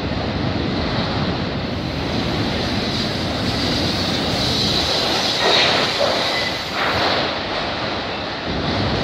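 Autorack cars of a Canadian Pacific freight train rolling past close by, with a steady rumble of wheels on rail. A high squeal from the wheels builds about three seconds in and fades a few seconds later.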